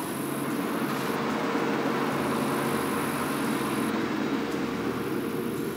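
A vehicle engine running steadily, an even noise with a constant low hum through it.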